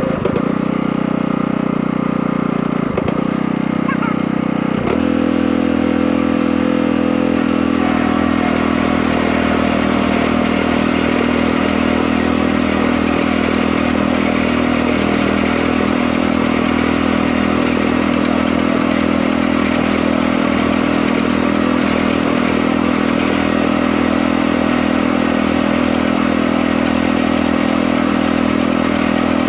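Tractor engine running steadily under load. About five seconds in its note steps up a little, and a few seconds later a rattling clatter joins it.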